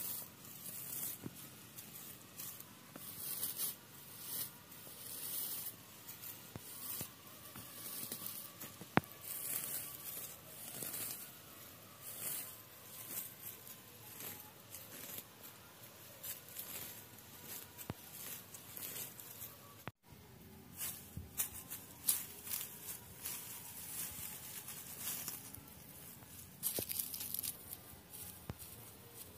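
Irregular rustling and scraping strokes of material being handled and worked, one every half second to a second, with a single sharp click about nine seconds in.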